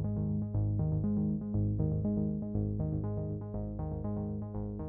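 Background synthesizer music with a steady pulsing beat and a bass line that steps between notes.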